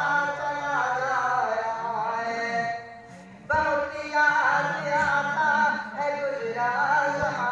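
A man's voice singing an Urdu naat into a microphone over a PA, with long, wavering held notes. The singing breaks off for a breath just under three seconds in, then comes back in full voice.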